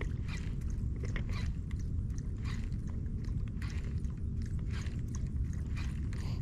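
Spinning reel being cranked while a topwater lure is retrieved, giving a run of irregular crunchy clicks and ticks over a steady low rumble.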